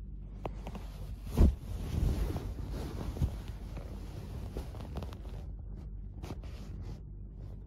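A cat pawing and scratching at a quilt close to the camera: fabric rustling with a few soft thumps, the loudest about a second and a half in. A steady low hum runs underneath.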